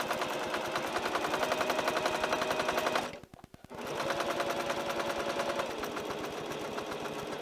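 Brother electric sewing machine stitching at speed, the needle clicking in a fast, even rhythm over the motor's hum. It stops briefly about three seconds in, then starts again and runs slightly slower near the end.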